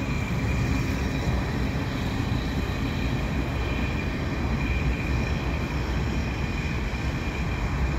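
Freight train rolling slowly past: a steady low rumble of railcar wheels on the rails, with a thin steady high whine above it.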